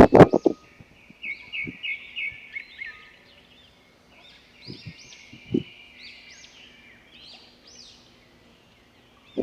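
Small birds chirping: a quick run of about five sharp chirps, then a string of repeated short arching call notes, with a few faint low thumps.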